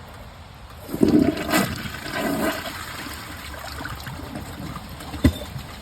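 2011 Glacier Bay toilet flushing about a second in: a loud rush of water that fades to a weaker flow as the bowl fails to clear a plastic bag and sock, leaving the toilet clogged. A sharp click near the end.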